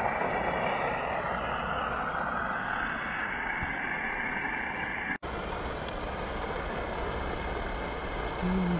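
Gas camping stove burner running, fed by hose from a gas canister and heating a pot of water: a steady rushing hiss. The noise drops out for an instant about five seconds in.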